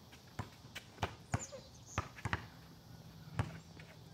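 A basketball being dribbled on a hard outdoor court: a string of sharp bounces at an uneven pace, about eight in four seconds.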